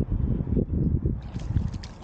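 Wind buffeting the microphone in an uneven, gusty low rumble, with faint water trickling and lapping among the rocks.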